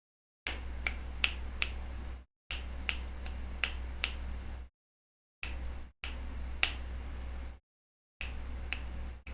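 Microphone noise cut in and out by a noise gate: a low electrical hum with hiss switches on and off abruptly five times, with dead silence between. Sharp clicks sound within each open stretch, sometimes two or three a second.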